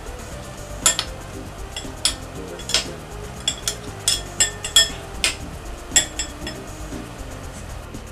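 Metal spoons clinking and scraping against a glass mixing bowl while scooping meatball mixture, a dozen or so sharp clinks at uneven intervals.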